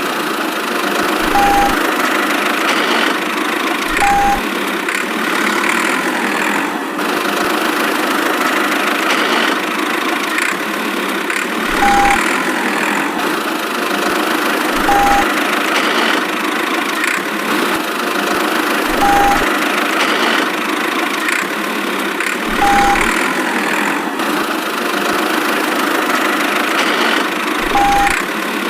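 Steady engine sound like an idling engine, with a short beep and a low thump every few seconds, seven times in all.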